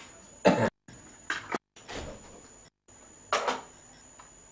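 Three short scuffing handling noises, about half a second, a second and a half and three and a half seconds in. The sound cuts out completely for a moment three times, and a faint steady high whine runs underneath.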